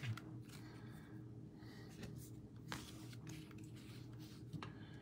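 Quiet room tone: a faint steady low hum, with about three soft clicks scattered through it.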